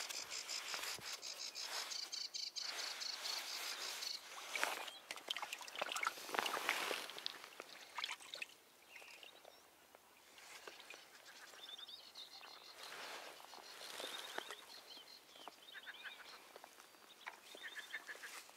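Rustling and knocks of fishing tackle being handled among dry reeds at the pond's edge, with rapid high-pitched trills from the pond's wildlife, loudest near the start and again in the second half.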